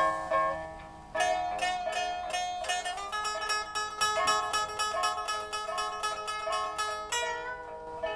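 Instrumental music on a plucked string instrument: single notes and short runs, each note struck sharply and left to ring and fade. The notes thin out for a moment about a second in, then pick up with a quick, repeating figure through the middle and a new, louder phrase near the end.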